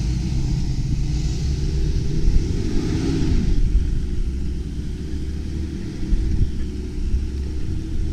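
Four-wheel drive's engine running under load as it drives up a soft sand track, with a steady low rumble. The revs rise and fall about three seconds in.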